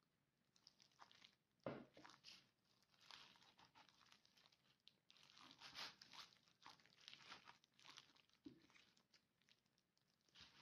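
Faint rustling and crinkling of a thin plastic food-prep glove, with scraping as a stainless steel ring cutter is pressed down through rolled pastry dough, and two soft knocks.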